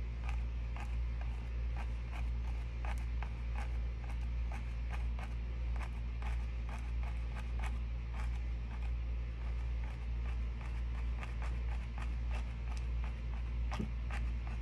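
Paintbrush dabbing and scratching on a stretched canvas, making a quick, irregular run of short dry ticks, several a second. A steady low hum runs underneath.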